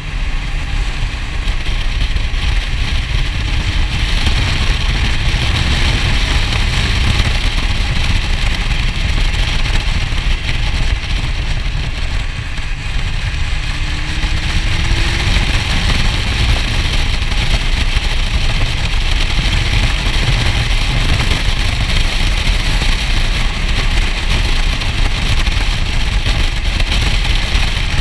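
Motorcycle running at road speed, with engine drone under a steady rush of wind over the camera microphone.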